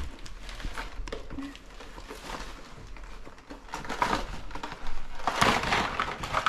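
Gift wrapping crinkling and tearing as a present is unwrapped by hand, in irregular rustles that grow louder about five seconds in.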